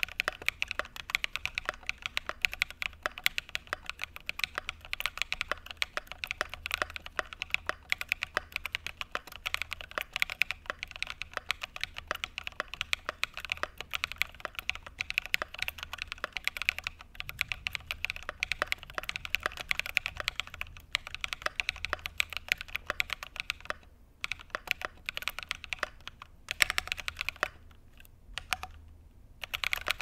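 Steady fast typing on a mechanical keyboard fitted with Akko CS Radiant Red linear switches (53 g), a dense run of keystroke clacks with a couple of brief pauses near the end.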